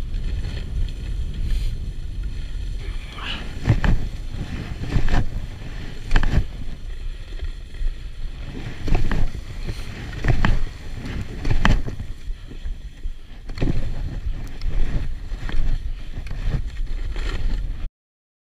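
Skis sliding along packed snow with wind noise on the microphone, and a swish or crunch about every second from ski strides and pole plants. The sound cuts off suddenly near the end.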